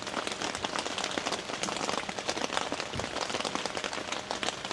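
Steady rain falling, with many separate drops ticking on a nearby surface.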